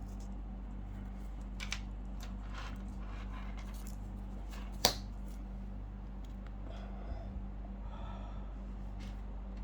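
Small clicks and taps of a watch strap and its spring bars being handled and fitted, with one sharp click about five seconds in, over a steady low electrical hum.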